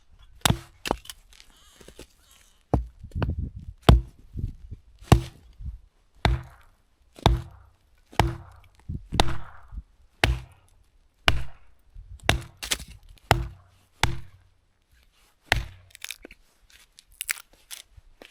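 Axe chopping firewood: a steady series of sharp strikes, about one a second, many with a short ring after the blow.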